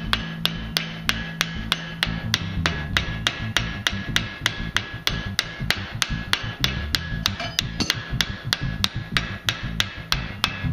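Ball-peen hammer striking a metal collar on a steel rod held in a vise, in a steady run of about four blows a second. Each blow is a sharp metallic strike with a short ring.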